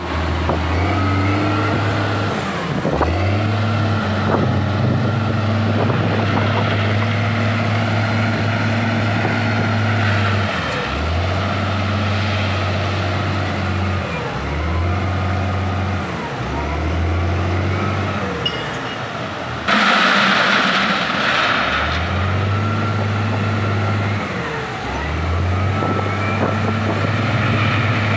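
Hindustan 2021D wheel loader's diesel engine working, its revs dropping and climbing again every few seconds as it moves and raises its bucket. About twenty seconds in, a sudden loud rush of noise lasts about two seconds.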